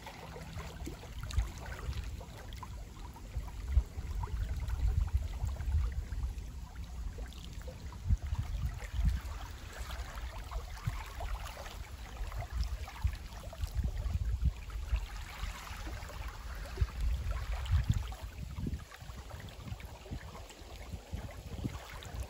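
Gusty wind buffeting the microphone in uneven low rumbles, over the faint wash of small wind-driven waves lapping at a lake shore.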